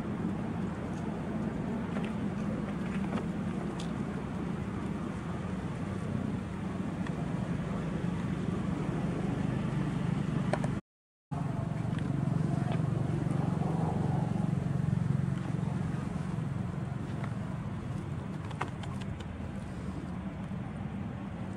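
A steady low rumble of background noise, a little louder for a few seconds after the middle, with a few faint clicks over it; it cuts out completely for a moment about halfway through.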